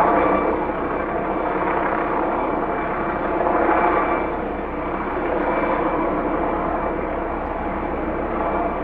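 Helicopter rotor and engine running steadily, with a fast low beat from the blades under a steady drone, swelling slightly a couple of times.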